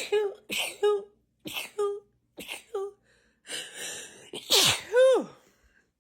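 A woman in a sneezing fit: about seven short, quick sneezes in rapid succession over the first three seconds, then a drawn-in breath and one louder, longer voiced sneeze whose pitch rises and falls.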